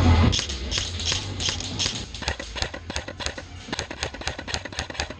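Airsoft play heard at close range: irregular sharp clicks and taps, a few a second, from shots and BBs striking hard surfaces. Music cuts off just after the start.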